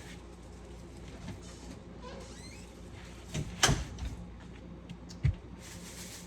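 Groceries being handled and set down: a few knocks, the loudest about three and a half seconds in and a shorter one about a second and a half later, over a low steady hum.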